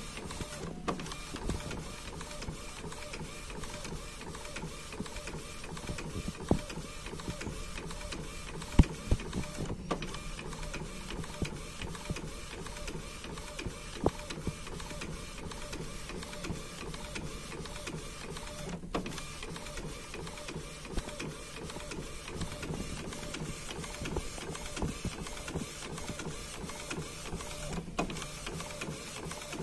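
Epson L805 inkjet printer, set up for DTF, printing onto transfer film: the print-head carriage moves back and forth with a steady mechanical running sound and occasional sharp clicks.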